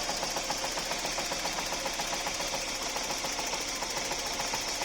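Opel Vectra A's C20NE 2.0-litre four-cylinder petrol engine idling cold after an overhaul, with a steady fast ticking and knocking. It runs unevenly when cold, which the owner takes for misfires.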